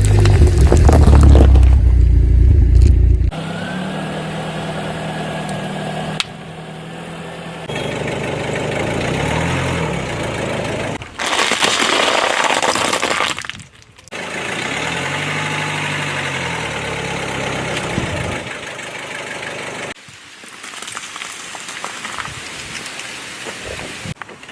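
A run of short spliced clips: a car engine running, its pitch rising and falling, with crunching and cracking as objects are crushed under the car, and a loud rumble at the start.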